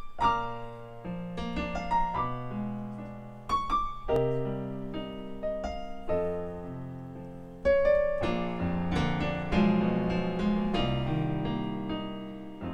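Solo piano playing a slow song introduction, chords and single notes struck and left to ring out, with a loud new chord about eight seconds in.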